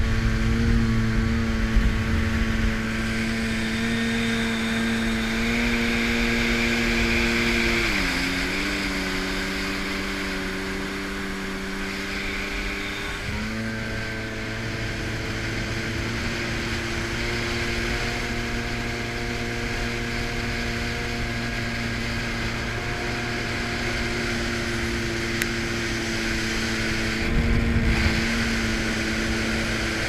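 Yamaha 800R two-stroke personal watercraft engine running at a steady cruise, heard from the craft itself. About eight seconds in, the pitch drops as the throttle eases, then rises back to its earlier note a few seconds later. Wind rumbles on the microphone at the start and again near the end.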